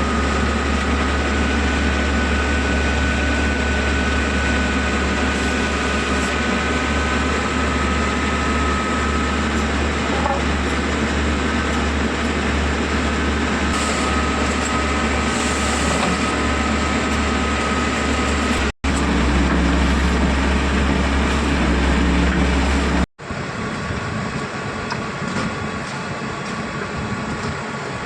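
Heavy construction machinery running steadily, a deep engine hum with a faint high whine over it. The sound drops out abruptly twice and comes back changed, lower and quieter after the second break.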